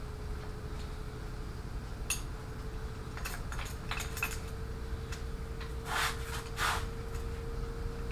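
Timing chains and sprockets of a 3.7-litre Jeep V6 clinking and rattling as they are worked off the front of the engine block by hand: a few sharp clinks, then two louder rattles near the end. A faint steady hum runs underneath.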